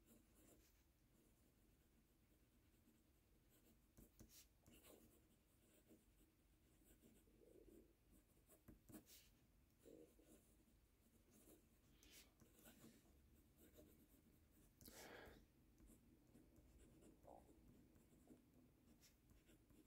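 Very faint scratching and light strokes of a TWSBI Vac fountain pen nib on paper as a line of words is handwritten.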